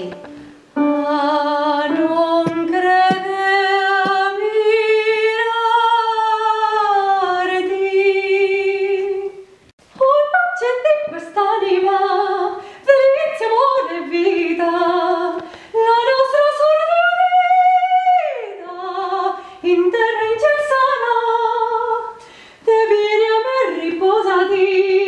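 A woman's trained soprano voice singing unaccompanied: long held notes with vibrato in phrases broken by short breaths, with a long rising note about two thirds of the way through that drops away suddenly.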